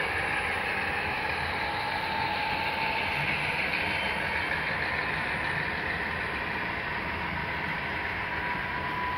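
Model freight train rolling past on layout track: a steady whirr and clicking of wheels and running gear on the rails, with a faint steady whine.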